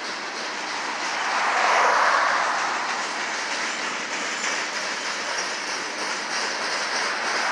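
Freight train of covered hopper cars rolling past, with a steady rumble and clatter of steel wheels on the rails. It swells louder about two seconds in, then eases.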